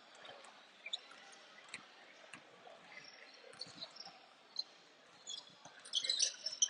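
Basketball game sounds in a gym: scattered faint sneaker squeaks and knocks. About six seconds in, play picks up with louder squeaks and a ball bouncing.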